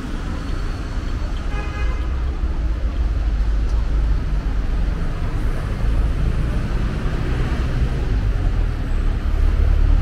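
City street traffic: a steady rumble of passing cars on the avenue, with a brief pitched sound about a second and a half in.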